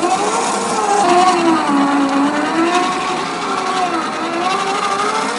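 Electric motor and geared drivetrain of an RC4WD Trail Finder 2 scale crawler whining as it creeps over rock, the pitch rising and falling with the throttle.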